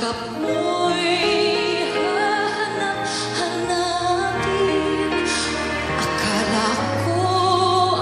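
A female vocalist singing live into a handheld microphone with piano and band accompaniment, holding notes with vibrato. Deeper bass notes come in about halfway through and again near the end.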